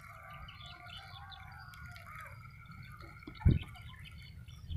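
Birds calling, with several overlapping, wavering calls over a steady low rumble. A single loud, short low thump comes about three and a half seconds in.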